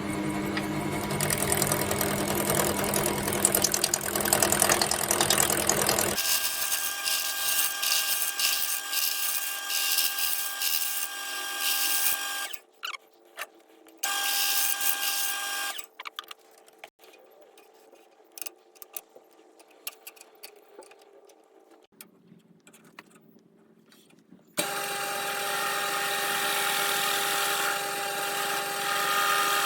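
Wood lathe running, with a turning tool cutting a spinning scrap of wood. The loud cutting noise over the motor's steady tones drops abruptly about halfway to a faint spell with scattered clicks, then comes back loud near the end.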